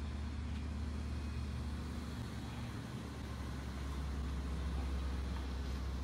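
Diesel passenger train standing at the platform, its EMD DM30AC locomotive idling: a steady low engine hum that grows slightly louder about four seconds in.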